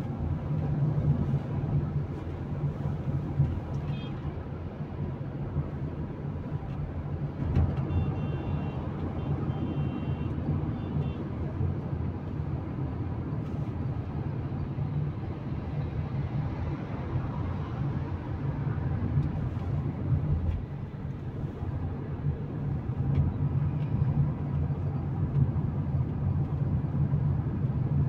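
Steady engine and road noise inside a Tata Punch's cabin while it cruises on a highway, with a low hum. A few short high beeps sound about eight to eleven seconds in.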